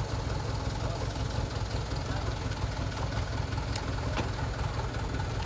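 Truck engine idling with a steady low rumble, with a few faint clicks partway through.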